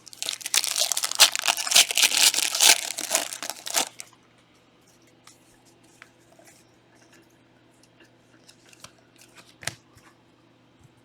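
A trading card pack's wrapper being torn open and crinkled for about four seconds, then only faint clicks as the cards are handled.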